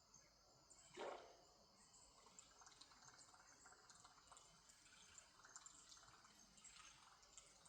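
Faint dripping and trickling of river water, with one soft plop about a second in.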